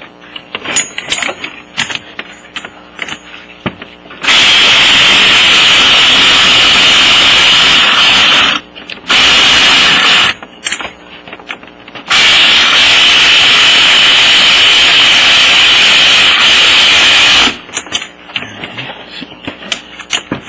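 SKIL drill driving in the cylinder head bolts of a 70 cc scooter engine, running in three bursts: about four seconds, then a short second and a half, then about five seconds. Light clicks from handling the tool and bolts come before and after.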